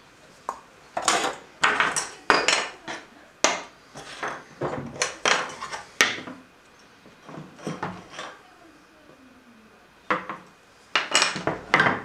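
Wooden dowel rods and 3D-printed plastic parts knocking and clattering against each other and the wooden workbench as they are handled. The sharp clicks and knocks come in several quick bunches with short quiet gaps between.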